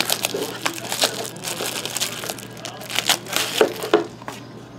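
Plastic wrap crinkling and tearing as it is stripped off a sealed box of The Cup hockey cards, with hands rustling and handling the box; a burst of louder crackles a little after 3 s and again just before 4 s.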